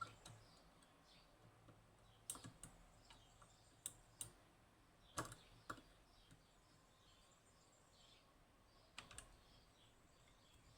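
Faint, scattered metal clicks from a lever-lock pick and tensioner working the levers inside a Union (Chubb) G110 five-lever lock, several of them in quick pairs.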